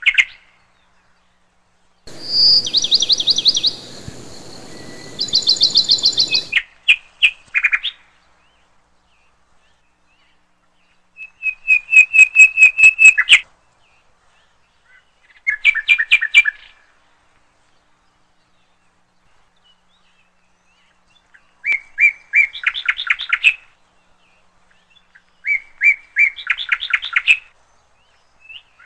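Small birds singing: short bursts of rapid, trilling chirps, about seven phrases with silent pauses between them.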